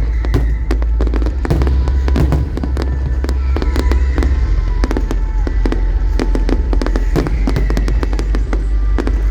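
Fireworks display going off in a dense, continuous volley of sharp bangs and crackles over a heavy low rumble, with music playing underneath.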